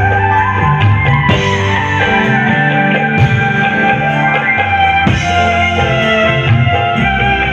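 Live dangdut koplo band music played loudly: Javanese kendang hand drums driving the rhythm under guitar and other pitched instruments.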